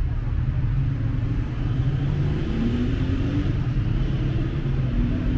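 Street traffic ambience: a steady low rumble of passing cars on the road.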